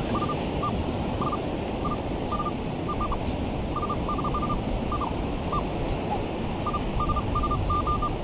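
Minelab Manticore metal detector giving short high beeps on a target, some single and some in quick runs of three or four, with a few brief pauses. Under the beeps runs a steady hiss of surf and wind.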